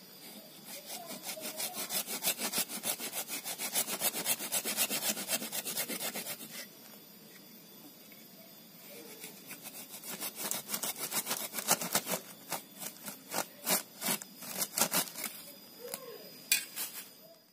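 A hand saw cutting through the woody trunk of a loa (Ficus racemosa) bonsai stock, with quick back-and-forth strokes. The sawing pauses for about three seconds midway, then starts again.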